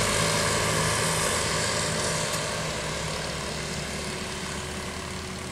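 Motor vehicles running on a rain-soaked road: engine noise that slowly fades, over the steady hiss of heavy rain and wet tyres.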